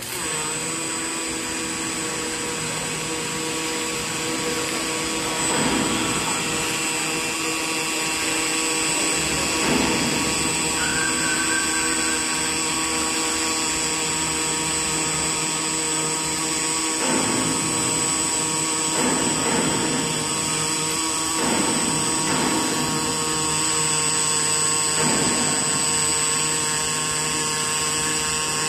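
Robotic pulsed arc welding. The arc strikes abruptly and runs as a steady buzz with a high whine.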